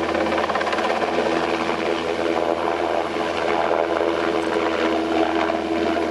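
NH90 twin-turbine military helicopter flying a display pass, its engines and rotor running with a steady whine held at one pitch.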